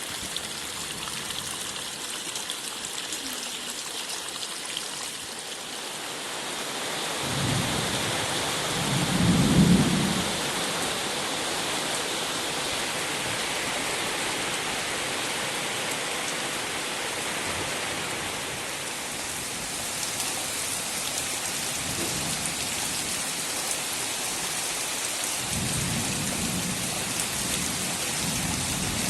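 Steady heavy rain falling, with a low roll of thunder building about seven seconds in and peaking a couple of seconds later, then another softer rumble near the end.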